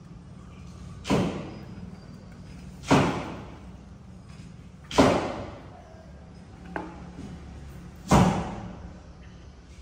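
Four sharp thuds, roughly two to three seconds apart, each dying away over about half a second.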